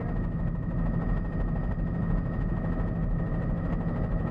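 Helicopter engine and rotor running with a steady drone and low rumble, holding a few constant tones.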